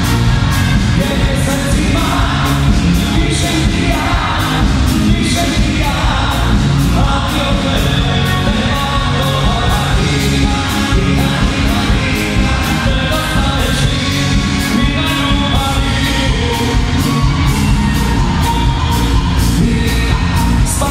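Live band playing pop-rock with a singer over a steady drum beat, with electric guitar and keyboards. It is loud and fills a large tent.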